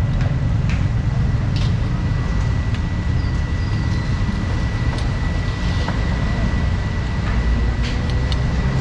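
Steady low rumble with a thin high whine over it, and a few scattered light metallic clicks and clinks of tongs and a ladle against large metal soup pans.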